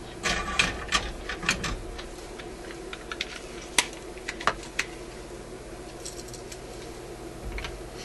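Blue plastic spring-loaded desoldering pump (solder sucker) being handled and its plunger worked. A cluster of clicks and rattles comes in the first two seconds, one sharp click near four seconds with a few lighter ticks after it, and a soft knock near the end as the pump is set down on the bench.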